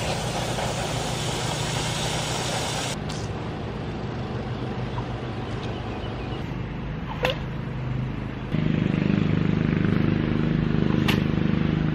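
Garden hose spraying water onto a rusty air compressor, a steady hiss that cuts off about three seconds in. A steady engine-like hum runs underneath and becomes much louder about two-thirds of the way through, with a few sharp clicks.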